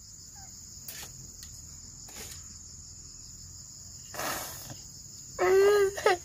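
Young boy crying: a sobbing gasp about four seconds in, then a loud wail near the end. A steady high chirring of insects runs underneath.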